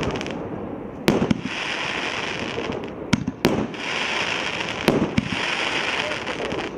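A 35-shot fireworks cake of 1" to 1.5" calibre tubes firing: about five sharp reports, some in quick pairs, each followed by a second or so of crackling hiss.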